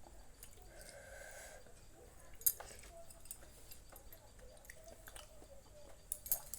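Quiet chewing and soft eating sounds, with a sharp click about two and a half seconds in and a few more near the end.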